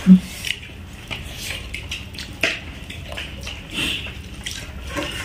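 Light clinks and scattered small clicks of stainless-steel plates and bowls during a meal eaten by hand, with a short low bump just after the start.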